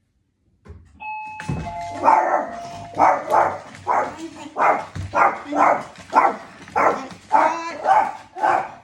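A two-note electronic chime, a higher note then a lower one, like a doorbell. A small dog then starts barking over and over, about two barks a second.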